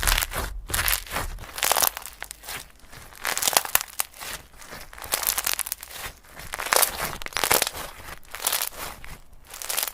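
Hands kneading and stretching slime, making irregular squishing noises several times a second that vary in loudness.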